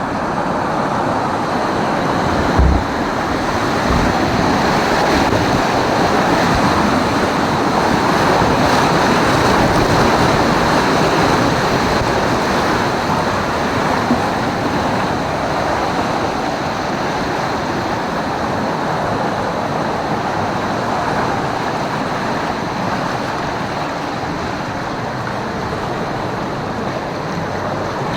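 Steady rush of churning, splashing water around a rider floating down a waterpark river ride, with a couple of brief low bumps a few seconds in.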